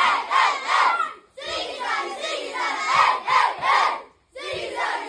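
A group of boys shouting and chanting together in a changing room, in rhythmic bursts that break off twice, with a few thumps in time.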